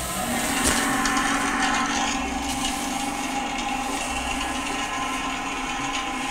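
Steady whirring noise from the test noise source inside a foam-wrapped metal cylinder, heard uncovered. It gets louder and a low hum comes in about a quarter second in, as the sound-deadening sample is lifted off the opening.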